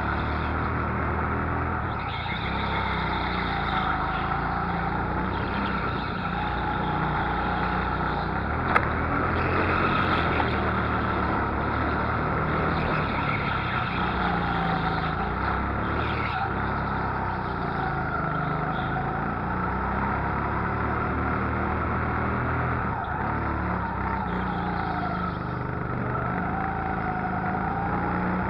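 Go-kart motor heard onboard while lapping, its pitch rising and falling with the throttle through the corners. There is one sharp click about nine seconds in.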